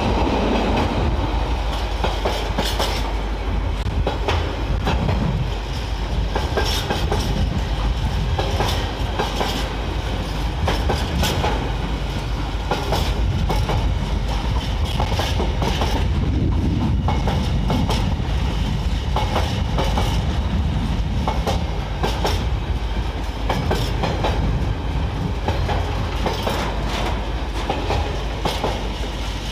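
Container freight train's wagons rolling past close by: a steady rumble with repeated clacks of the wheels over the rail joints.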